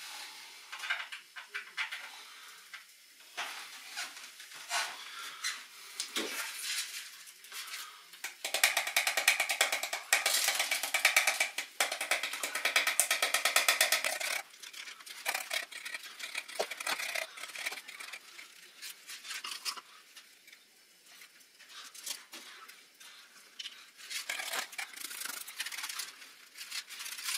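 Homemade static grass applicator, a plastic waste pipe with a metal sieve mesh, being shaken so the 4mm grass fibres rattle against the mesh: irregular light rattling and tapping, with a louder stretch of fast, vigorous rattling in the middle.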